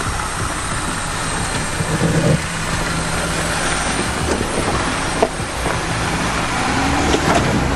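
Engine of an off-road 4x4 running steadily at low revs, with a brief louder swell about two seconds in.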